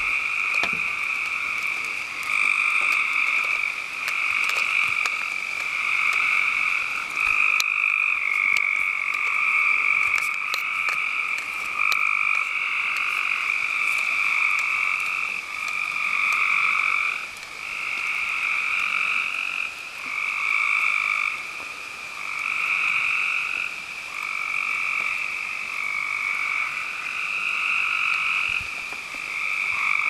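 A dense chorus of frogs calling at night. Many overlapping high-pitched calls merge into a near-continuous trilling that swells and dips every second or two.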